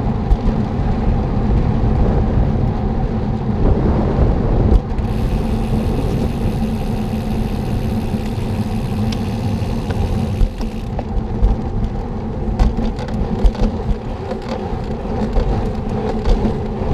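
Steady low road rumble, the kind picked up on a moving bike at night, with a brighter hiss from about five to eleven seconds in and a few light knocks toward the end.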